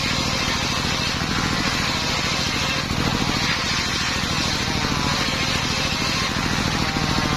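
Homemade circular saw rig running steadily, its drive motor giving a fast, even pulsing under a continuous whirring hiss.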